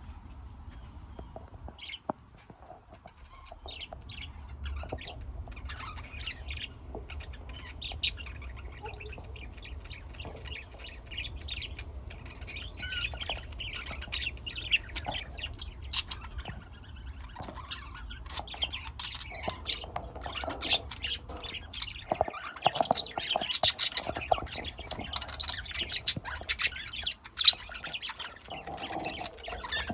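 Pet budgerigars and lovebirds chirping and squawking in a continuous chatter that grows busier in the second half, with a few sharp clicks now and then.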